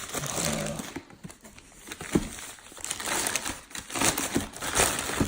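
Plastic bag crinkling and rustling in irregular bursts with small crackles as it is handled and opened to get the box out.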